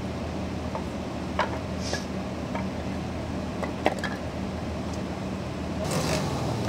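Vehicle engine idling with a steady low hum, with a few light clicks and knocks over it.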